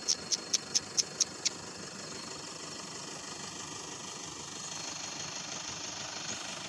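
Toyota Hilux 3.0 D-4D four-cylinder turbodiesel idling steadily. A quick run of about eight sharp, high ticks, roughly four a second, sounds in the first second and a half.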